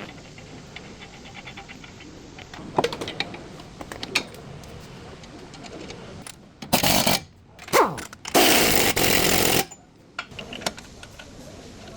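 A power tool run in three short bursts, the last about a second and a half long, after a few lighter clicks and knocks of tools being handled.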